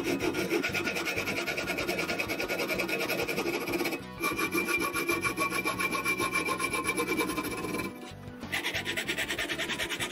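Hand hacksaw cutting through a piece of metal angle held in a bench vise, a fast scraping sawing with a steady ringing note from the metal. The sawing breaks off briefly twice, about four and eight seconds in.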